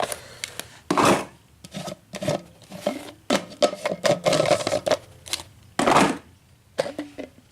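Removable parts of a vintage Black & Decker coffee maker being handled and pushed back into place. Irregular clicks, knocks and rubbing, with louder scrapes about a second in and again near six seconds.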